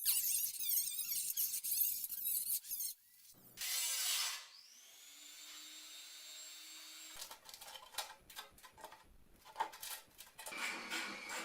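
Workshop tool sounds on metal, in quick succession: a rasping scrape for about three seconds, a short loud hiss, a steadier quieter hiss, then scattered clicks and scraping.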